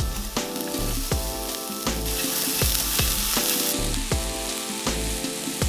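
Diced onion, garlic and carrot sizzling in hot oil in a frying pan. The sizzle grows louder about two seconds in and eases back a second or so later.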